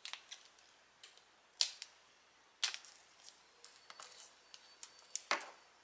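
Heat transfer vinyl being weeded by hand: a weeding tool picks at the cut vinyl and the waste is peeled off its carrier sheet on a cutting mat, making scattered sharp clicks and light crackles.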